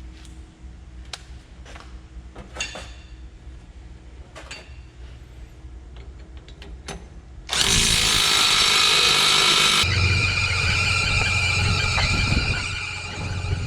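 Scattered clicks of tools on metal against a low hum. About seven and a half seconds in, a loud power tool starts suddenly with a hissing rush; after about two seconds it settles into a steadier whining run.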